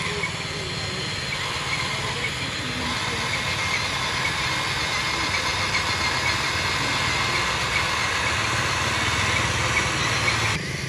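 Remote-control Huina toy excavator driving across dirt on its tracks, a steady motor noise that grows a little louder, then cuts off near the end.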